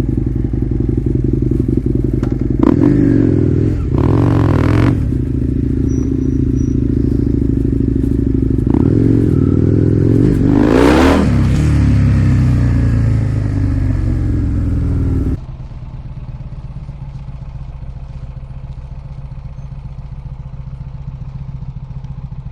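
Husqvarna Nuda 900R's parallel-twin engine through a LeoVince exhaust with titanium headers, running loud and revved twice, its pitch rising and falling each time. About two-thirds in the sound drops suddenly to a quieter, steady idle.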